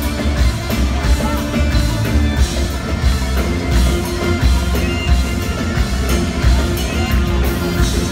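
A live band playing loud Middle Eastern pop at a concert, with electric guitars, keyboard and a darbuka hand drum over a steady heavy bass beat. The band plays without pause.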